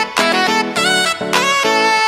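Instrumental background music: a lead instrument plays a melody of short held notes over a steady accompaniment.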